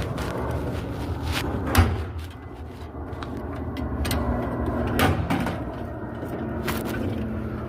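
Metal drawers of a U.S. General 27-inch tool chest being slid and pushed shut, with several clunks and knocks, the loudest about two seconds in, and lighter rattling between; two of the drawers don't close all the way. A steady low hum runs underneath.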